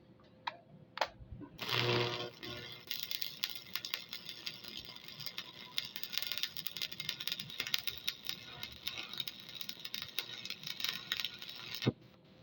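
Electric arc welding: the crackle of a welding arc, struck about one and a half seconds in, running steadily for about ten seconds and cutting off abruptly near the end. A couple of sharp clicks come just before it.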